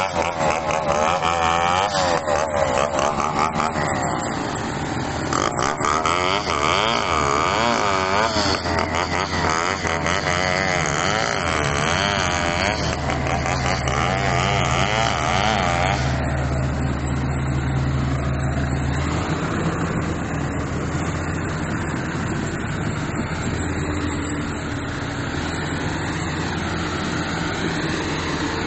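Bulldozer's diesel engine working, its pitch wavering up and down through the first half, then settling into a steadier low running.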